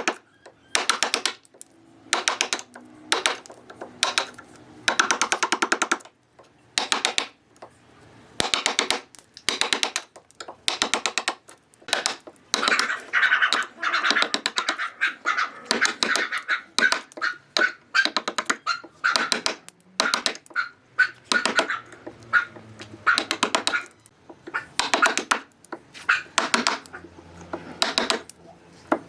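A hand tool worked on wood in repeated strokes, about one stroke a second, each a short rasping burst of fine clicks, with a ringing tone in some strokes midway through.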